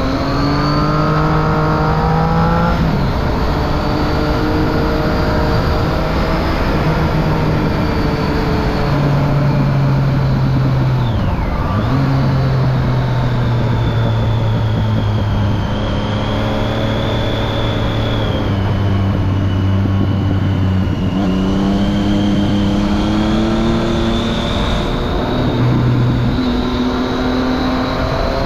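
Triumph Street Triple 675's three-cylinder engine through a Remus Hypercone exhaust with the dB killer fitted, pulling under throttle. Its pitch climbs in the first few seconds, drops sharply about eleven seconds in, holds steady through a long middle stretch, then climbs again and drops near the end, as with gear changes.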